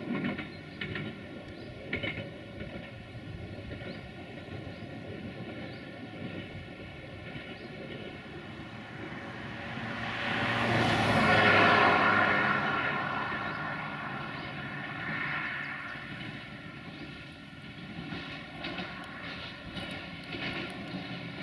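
Diesel railcar running along the line, a steady engine drone with an even hum. A louder pass-by swells and fades a little past halfway through, and faint clicks come near the end.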